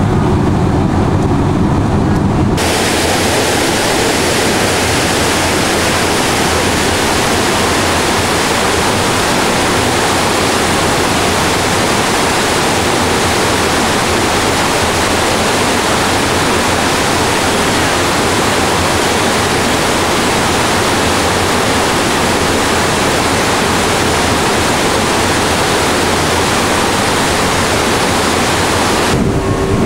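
A steady low ship-engine hum for the first couple of seconds, then a loud, even rush of churning water alongside a moving ferry, as from its wake or bow wave. The rush starts suddenly and cuts off just before the end.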